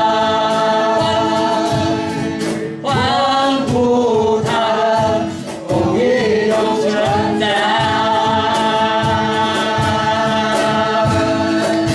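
Mixed male and female voices singing a Mandarin worship song together over a strummed acoustic guitar, holding long notes with short breaks between phrases.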